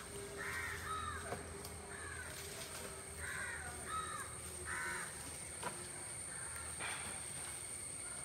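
Birds calling outdoors: several short calls, each bending down in pitch, coming at irregular intervals, over a faint steady high-pitched tone.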